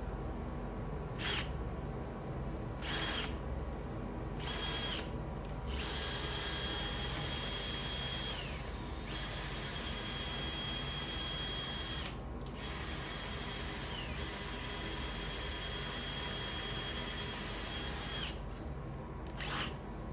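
Cordless DeWalt drill spinning an angle-grinder gearhead that turns a scissor jack's lead screw, running as a steady motor whine in several runs with short stops between. Twice the whine drops in pitch as the drill slows under the load of the jack.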